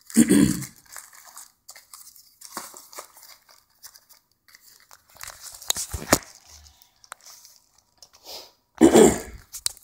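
Plastic wrapping and a cardboard box crinkling and rustling as phone accessories are packed back into the box by hand, with scattered clicks. There is a loud rustling burst at the start and another about nine seconds in.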